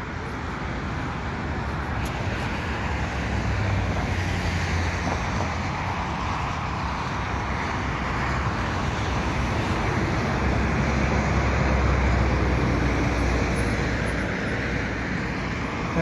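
Steady traffic noise from vehicles on a multi-lane highway, swelling as vehicles pass about four seconds in and again, louder, around eleven to twelve seconds in.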